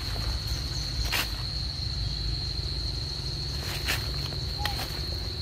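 Insects buzzing: one steady high-pitched drone, with a few sharp clicks about a second in and again near four seconds in.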